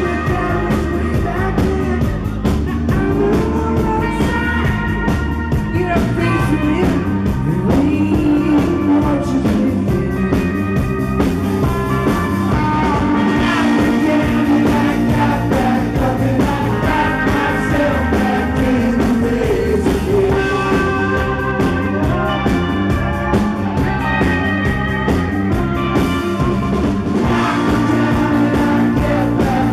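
Live rock band playing, with a man singing lead over electric guitars, bass and drums.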